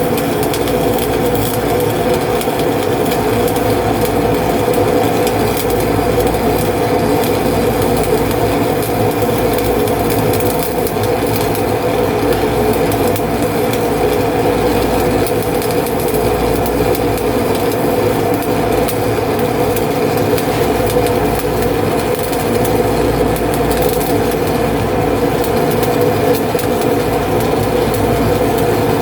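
Steady humming and rumbling of welding-shop machinery, with a fine crackle over it.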